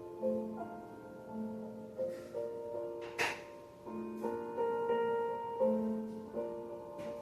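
Slow, gentle piano music with sustained, overlapping notes. A few sharp pops ring out over it, the loudest about three seconds in, like crackles from a wood fire.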